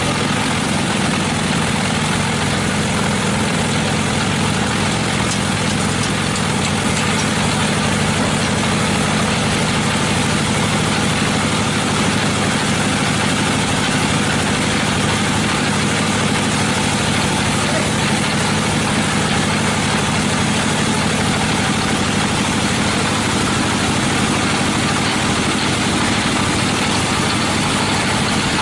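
Sawmill machinery running steadily, a constant engine-like drone with a dense hiss over it.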